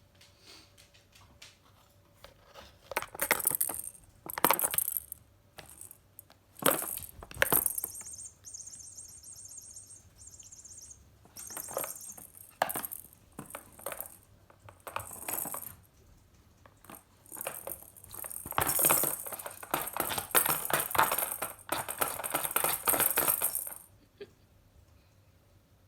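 Cat toy clattering and clinking in repeated bursts as it is batted and pushed about, with quiet gaps in between.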